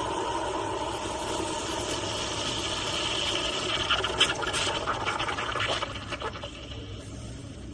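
Breville Bambino espresso machine running with a steady rasping hiss that eases off after about six seconds.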